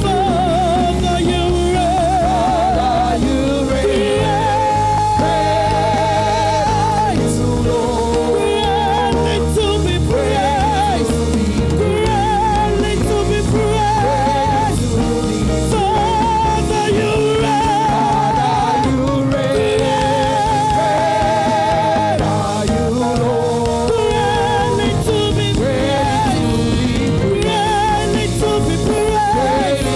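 Gospel worship music: a voice singing long, wavering notes with heavy vibrato over a steady band accompaniment.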